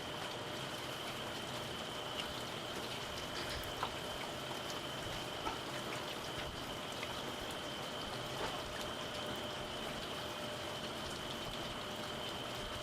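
Eel sizzling on a grill: a steady, even sizzle with scattered small crackles and pops. A steady high whine runs underneath.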